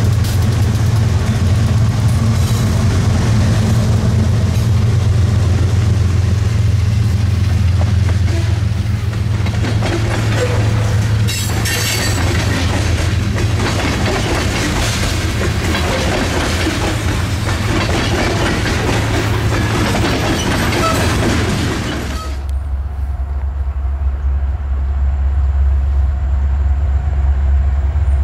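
Freight train passing close by: a steady low drone, then railcars rolling past with their wheels clicking over the rail joints. About 22 seconds in, the sound cuts abruptly to a low steady rumble.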